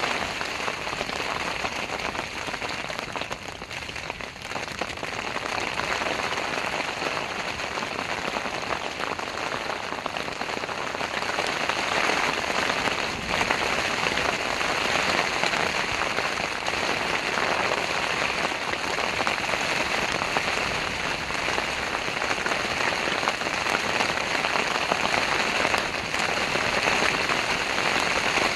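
Heavy rain falling steadily, an even hiss with a slight lull about four seconds in.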